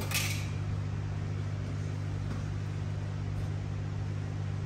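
Steady low hum over a faint hiss, with a brief rustle at the very start.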